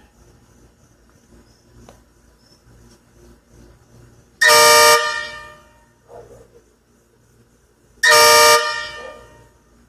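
An M35A2 deuce-and-a-half air horn fitted to a CUCV truck, sounded in two short, loud blasts about four seconds apart, each dying away over about a second.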